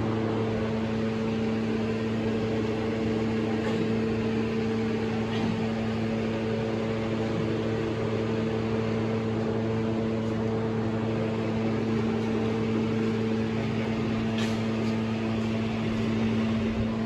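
A steady machine hum with a constant low drone and no change in pitch.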